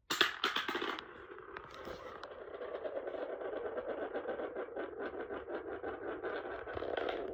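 Wind-up toy spinning top released with a brief clatter, then spinning with a steady, rapidly pulsing whir that cuts off suddenly near the end.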